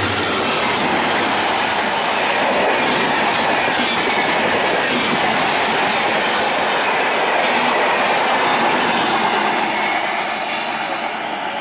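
An express passenger train's coaches passing close by at speed behind a WDP4 diesel locomotive: a loud, steady rush of wheels on the rails. It drops somewhat about ten seconds in as the last coach goes by.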